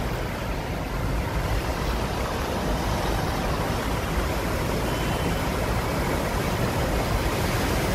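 Road traffic on a wet street: a steady rushing noise with a low rumble.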